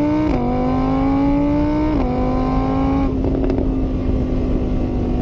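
Vehicle engine accelerating: its pitch climbs and drops sharply at gear changes, once just after the start and again about two seconds in, then holds roughly steady.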